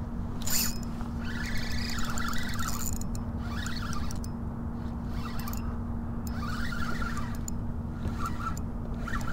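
Spinning reel cranked in short spells of scratchy whirring as a hooked fish is reeled in, over a steady low hum.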